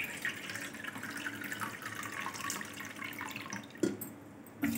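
Water pouring from a bottle into a stainless-steel bowl, splashing steadily as the bowl fills. A short knock comes near the end, and then the pouring stops.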